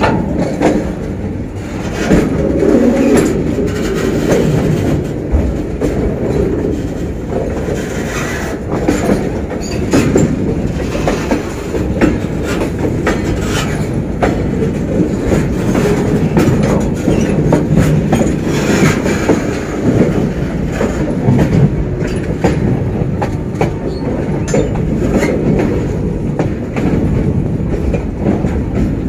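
Slow-moving freight train running over the track: a steady rumble of steel wagon wheels on rail, with irregular clicks and knocks throughout.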